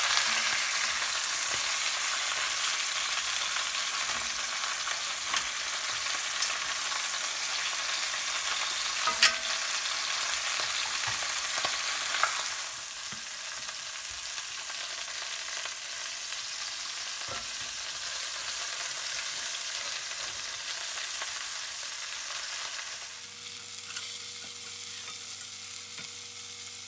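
Venison shanks sizzling as they sear in hot oil in cast iron Dutch ovens, the edges being browned. A few sharp clicks of metal tongs against the pot. The sizzle drops quieter about halfway through.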